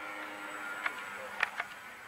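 Steady buzz of small electric motors on radio-controlled aircraft, with three sharp clicks about a second in.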